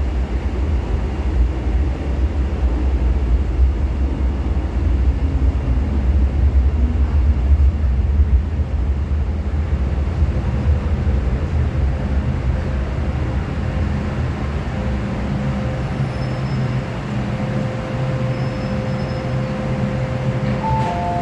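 Steady low rumble and hum of an MTR M-Train metro train, with faint steady tones coming in about halfway.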